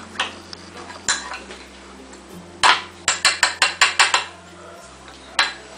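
Metal spoon clinking against the side of a clear cup as it stirs a thick glue mixture for slime. There is a clink near the start and another about a second in, then a quick run of about eight clinks in the middle.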